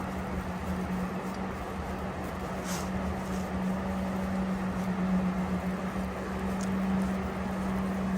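A motor running steadily: one low, even tone over a rushing noise and a low rumble.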